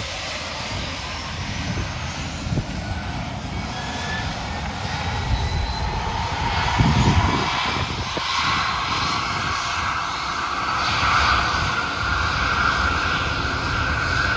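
Aircraft engine running, with a high whine slowly rising in pitch over a steady low rumble.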